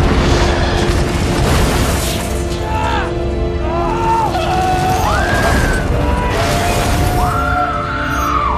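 Film soundtrack mix: score with heavy, continuous rumbling booms and crashing debris, and several shouts and cries that end in a long woman's scream near the end.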